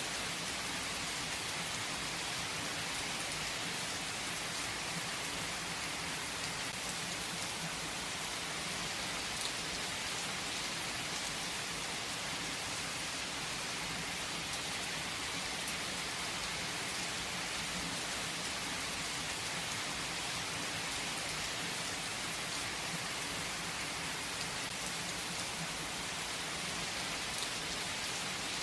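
Heavy rain falling on a tree's leaves: a steady, even hiss of rain with a few sharper drop ticks here and there.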